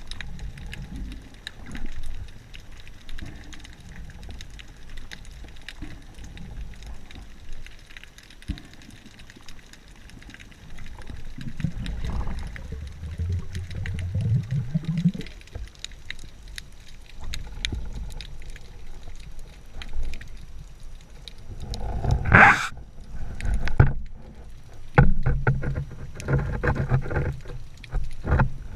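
Muffled water noise heard through a GoPro's waterproof housing during a dive: a low rumble of water movement with knocks and rubbing against the housing, and one brief loud rush of noise late on.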